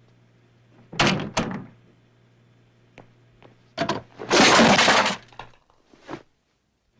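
Foley sound effects for an action scene: two sharp hits about a second in, then a second-long crash of breaking around four seconds in, and one last short hit near the end.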